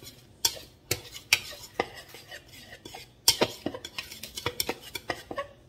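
A metal utensil stirring flour, sugar and salt together in a large mixing bowl. It clinks and scrapes against the sides of the bowl in irregular strokes, about two to three a second, coming faster in the second half.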